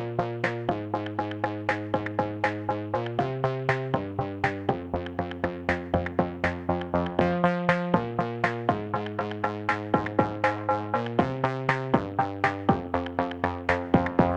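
Background music: an electronic track with quick repeated synthesizer notes, about four a second, over chords that change every second or so.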